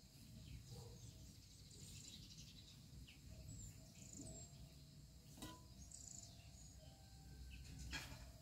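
Near silence: a quiet room with faint high bird chirps now and then and a couple of soft knocks from hands working dough, the last near the end as dough is set down on a metal tray.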